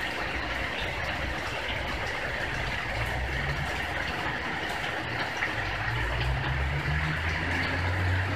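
Large truck engine idling with a low, steady hum that grows stronger about three seconds in, over a steady hiss.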